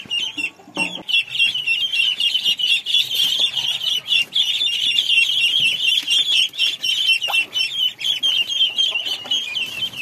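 A flock of ducklings peeping continuously, many rapid high peeps overlapping, with a brief lull about half a second in.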